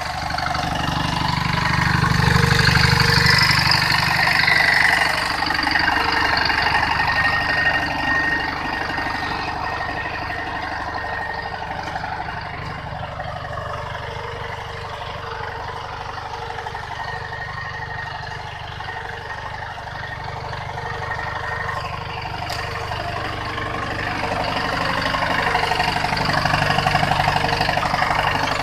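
Captain compact diesel tractor's engine running steadily while it pulls a reversible plough, louder in the first few seconds and again near the end.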